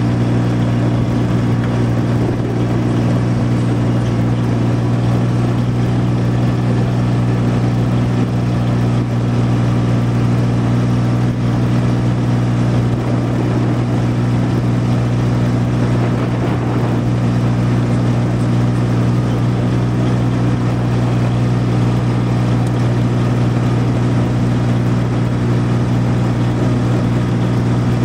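Vehicle engine running steadily as it drives slowly over grass: an even low drone with no change in pitch.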